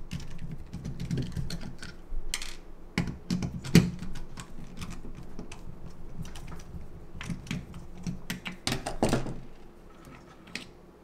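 A screwdriver working the cover off a two-pole AC contactor: a run of irregular small clicks and plastic-and-metal handling knocks, with a few louder thuds.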